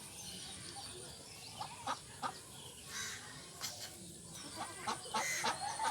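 Ducks calling with short, scattered quacks and clucking calls, several in a cluster about two seconds in and again near the end. A faint steady high-pitched tone runs underneath.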